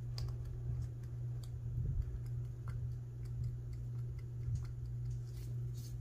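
Small, irregular metallic clicks from an old Yale & Towne push padlock being turned and worked by hand while it is jammed semi-open. A steady low hum runs underneath.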